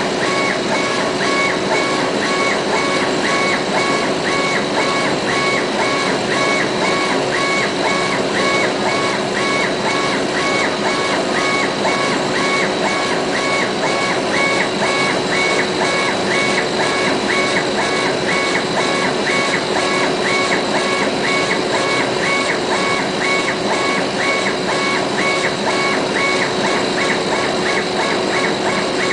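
CNC laser engraver working, its stepper motors whining in a regular back-and-forth rhythm about twice a second as the head scans, over a steady hum and hiss.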